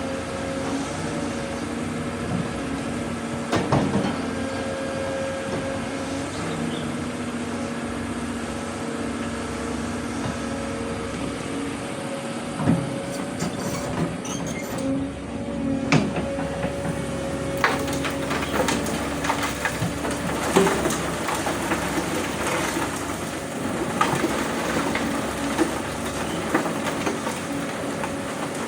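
Doosan DX200A excavator running steadily while it loads, with scattered heavy knocks. In the second half, rock and dirt clatter as they are dumped and shifted.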